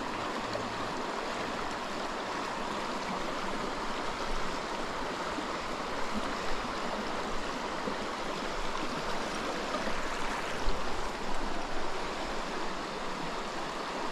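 Small, shallow, rocky mountain stream flowing over stones: a steady rush of running water.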